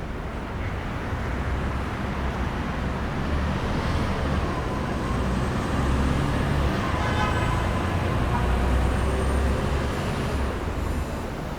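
Downtown street traffic: a steady wash of vehicle noise with a heavy vehicle's low rumble swelling past in the middle and easing near the end, and a brief pitched tone about seven seconds in.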